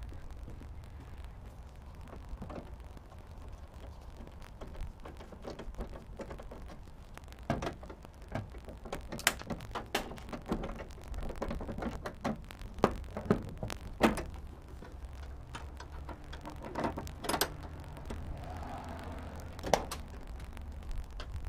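Steel chain links clinking and metal knocking as a homemade welded-chain truck mirror bracket is pulled and adjusted by hand: a scatter of sharp clicks and clanks, clustered in the middle with one loud knock near the end, over a steady low rumble.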